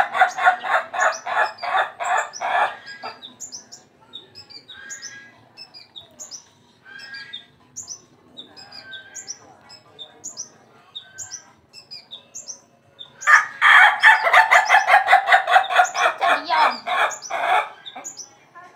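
Ayam ketawa (Indonesian laughing chicken) rooster crowing its long stuttering crow: a quick run of repeated notes that sounds like laughter. One crow ends about three seconds in, and another runs for about four seconds from about thirteen seconds in. Faint, short high chirps fill the gap between them.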